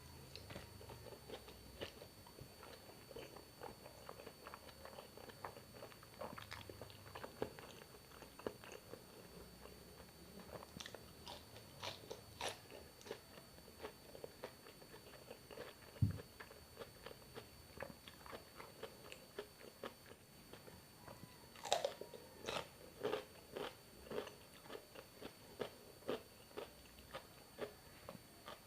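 Close-miked eating: a person chewing with wet mouth sounds and crunchy bites, most frequent near the end. About halfway through comes a single dull thump.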